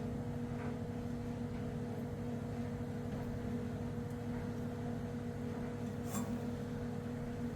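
Steady low hum of background equipment, with a single faint click about six seconds in.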